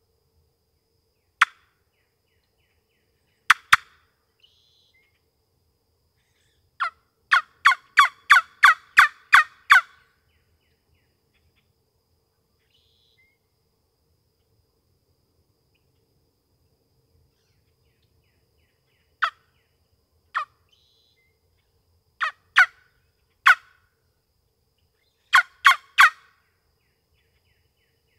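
Hunter's turkey call sounding a series of hen yelps to provoke a gobble: a few single notes, then a run of about eight quick yelps at roughly three a second, and later scattered yelps and a short run of four. No gobble answers.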